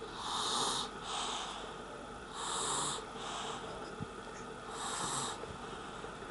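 A young child snoring in her sleep: three noisy breaths about two and a half seconds apart, each a louder breath followed by a softer one.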